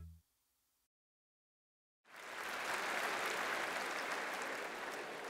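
Music fades out, there are about two seconds of silence, and then a large audience starts applauding steadily.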